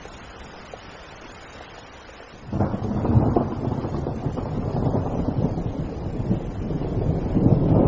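Steady rain falling, then about two and a half seconds in a loud thunderclap breaks out and rumbles on under the rain, swelling again near the end.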